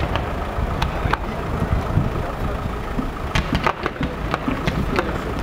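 Fireworks going off: sharp pops and crackles, a few early and a quick cluster about three and a half seconds in, over a steady low rumble.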